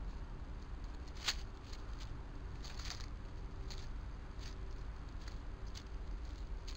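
Scattered short rustles and ticks of a bank vole and a wood mouse moving in dry leaf litter, the sharpest about a second in, over a steady low background rumble.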